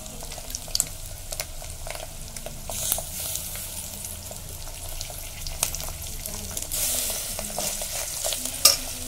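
Minced meat sizzling in oil in a pressure cooker, stirred with a metal spoon that scrapes and clicks against the pot, with one sharper clack near the end.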